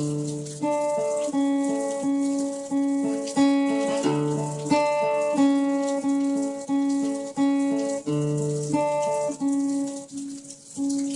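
Guitar picking a steady, repeating arpeggio of ringing notes, about one and a half a second, with a low bass note every four seconds or so. Rain makes a faint hiss and patter behind it.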